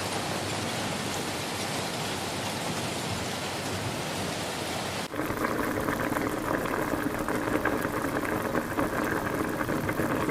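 Steady rain falling. About five seconds in it cuts abruptly to a closer, lower-pitched rain sound with more distinct drops.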